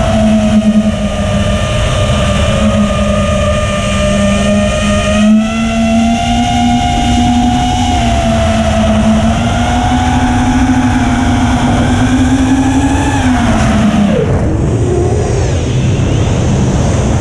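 The brushless motors and 5-inch propellers of an ImpulseRC Apex FPV quadcopter (iFlight 1750KV motors) whining steadily, the pitch wavering slightly with throttle. About fourteen seconds in the pitch drops sharply as the throttle is chopped for a dive, then climbs again near the end.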